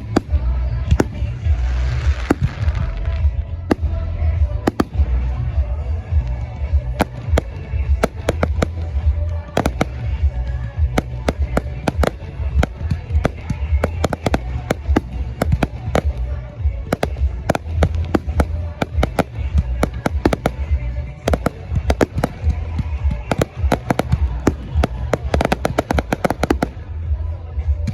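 Aerial fireworks going off in quick succession, sharp bangs and crackles throughout, thickest near the end, over a constant deep rumble.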